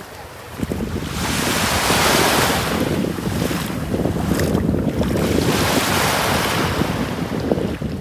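Sea waves washing up onto a fine-pebble-and-sand beach, surging twice, with wind buffeting the microphone.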